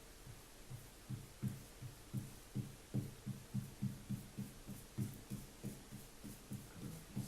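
Rhythmic low thumps, about three a second, of paint strokes worked back and forth over a patched plasterboard wall.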